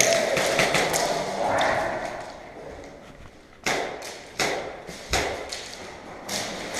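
Voices in the first two seconds, then four sharp knocks or cracks spread over the last three seconds, each with a short echo.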